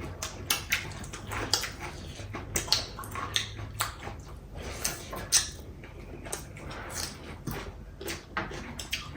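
Close-up eating sounds of people eating chicken biryani: chewing and lip smacks, heard as many short, irregular clicks and wet noises.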